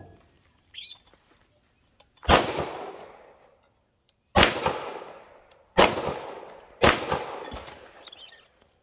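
Four 9mm shots from a CZ pistol, fired one at a time: the first about two seconds in, then three more at shortening gaps of about two, one and a half, and one second. Each crack is followed by a long fading echo.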